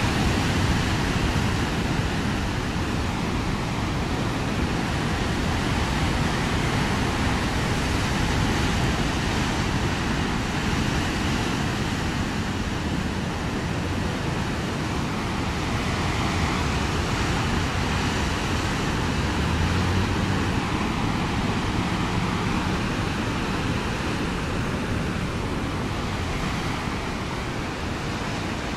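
Ocean surf breaking and washing over a rocky shore: a continuous rush of water with a deep rumble, swelling and easing a little.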